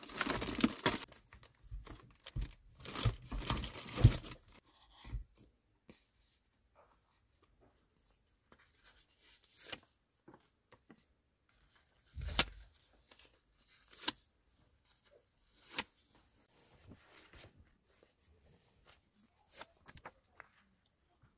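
Tape and plastic wrapping being torn and peeled off a package of memo pads, with crinkling, then sparse short rustles and taps of paper pads and notebooks being handled.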